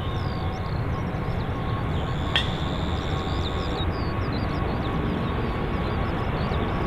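Airbus A380's four jet engines at takeoff thrust as it rotates and lifts off: a steady low rumble with a thin high whine over it. A single sharp click about two and a half seconds in.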